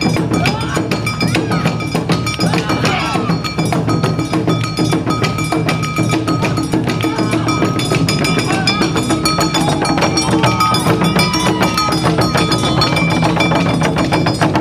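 Live Awa Odori festival accompaniment (narimono): taiko drums and a clanging kane hand gong keep a brisk, steady beat.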